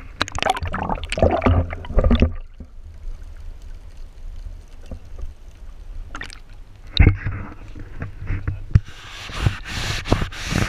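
Water splashing and gurgling around an action camera as it is plunged under the surface beside a boat, loudest in the first two seconds and again near the end. In between the sound is muffled, with a sharp knock about seven seconds in.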